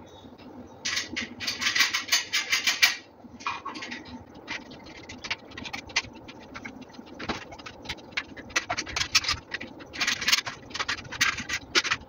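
Screwdriver working the screws on a ceiling fan's metal blade brackets: bursts of rapid scratchy clicking, with metal parts scraping as the brackets are handled. The busiest bursts come about a second in and again in the last few seconds.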